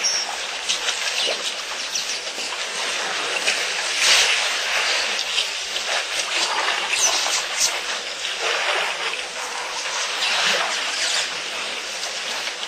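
Water splashing and trickling as elephants wade and drink, a continuous wash with many small splashes.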